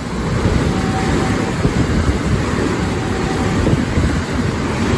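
JR West 225 series 0 electric multiple unit running through the station at speed. Its wheels and cars make a loud, steady rumble and rush as the train goes past close by.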